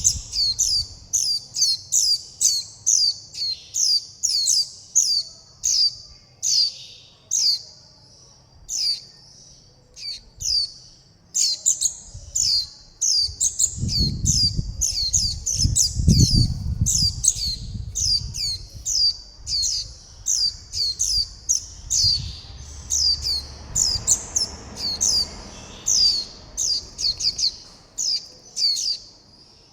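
Fledgling white-eyes giving their begging and contact calls: short, high, down-slurred chirps repeated rapidly, about two a second, with a short lull partway through. A low rumble rises under the calls around the middle.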